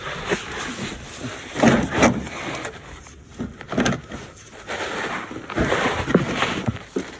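Irregular knocks, scrapes and rustling from a wrench and socket on a stuck oil pressure switch, mixed with a person's hard breathing as he strains to break it loose, with a few sharper peaks. The switch will not turn.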